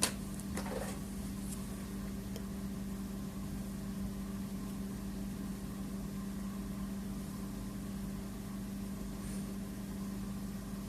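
Steady low hum, like a motor or appliance running, with a short click right at the start and a few faint ticks just after.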